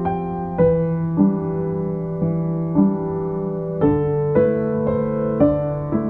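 Background piano music: a slow melody of sustained notes, changing about once a second over a held low note.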